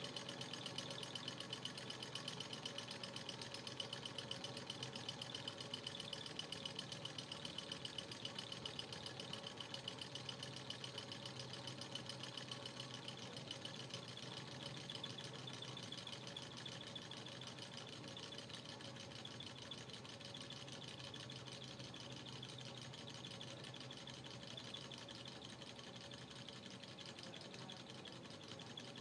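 Robart beam-type Stirling engine running with a fast, even mechanical clatter from its pistons, beam linkage and flywheel, slowly getting quieter. With the alcohol lamp taken away, it is running on the heat left in its glass hot cylinder as it cools.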